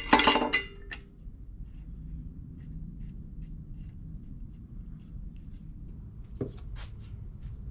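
Steel ARP head studs being handled and threaded into a Honda D-series engine block: a short burst of metal scraping and clinking at the start, then faint scattered ticks over a low steady hum, with one sharp click near the end.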